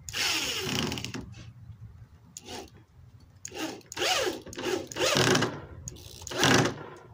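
Electric drill driving wood screws into the panels of a wooden speaker box in about six short bursts, its motor whine falling in pitch as each screw bites.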